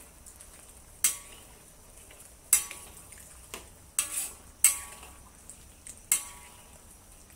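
Metal wok spatula knocking and scraping against a wok, about six sharp strikes with a short metallic ring. The strokes come from stirring cornstarch slurry into the simmering braising liquid, with a faint sizzle underneath.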